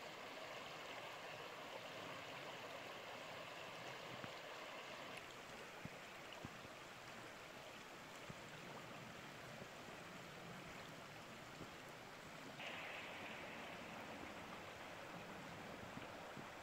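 Faint, steady rushing of a river, with a few faint ticks over it.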